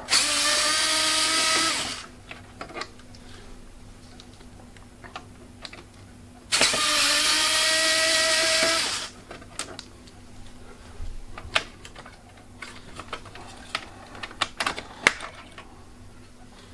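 Electric screwdriver running in two bursts of about two seconds each, a steady whine at one pitch, backing out the screws that hold a graphics card's bracket in a PC case. After the second burst come scattered light clicks and knocks of screws and the card being handled.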